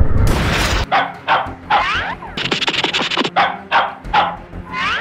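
A dog barking and yipping in a run of about ten short, quick calls, each falling in pitch. The barks are laid over background music, after a loud whoosh in the first second.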